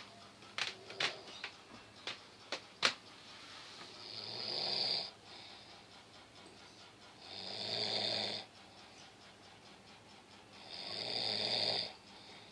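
A child snoring in sleep: three rasping snores about three and a half seconds apart, each lasting about a second. A few sharp clicks come before the first snore.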